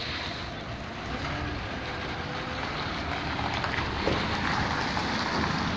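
Diesel engine of a 14-wheel heavy truck running as it drives off, a steady low rumble that grows slowly louder toward the end.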